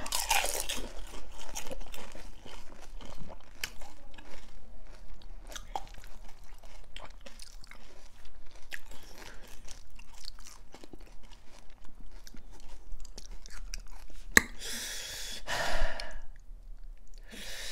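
Close-up chewing and crunching of panipuri: crisp hollow puris being bitten and chewed, with many small crackles. Near the end there is one sharp click and a couple of breathy hisses.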